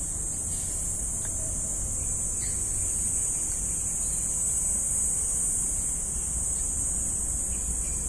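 Outdoor ambience: a steady high-pitched hiss with a low wind rumble on the microphone, unchanging throughout.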